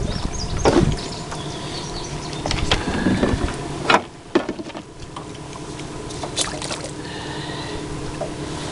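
Knocks and clatter of handling in a small fishing boat over wind on the microphone for the first four seconds, ending with a sharp knock. After that a boat motor runs steadily with a few light clicks.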